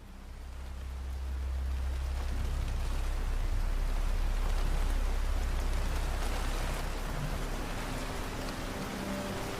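Steady rain falling, fading in over the first couple of seconds, with a deep low rumble underneath.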